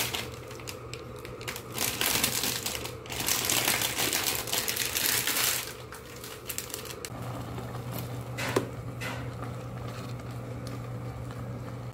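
Plastic instant-noodle wrapper crinkling in bursts as broken noodle bits are shaken out of it into a pot, over the first half or so; then a steady low hum with a sharp click.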